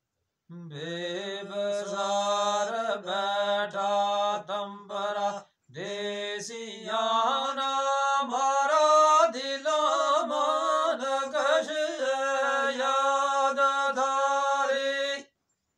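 A man singing unaccompanied in a long, drawn-out, chant-like style, holding notes with wavering ornaments. He breaks off briefly after about five seconds, then comes back on a higher note and sings on until just before the end.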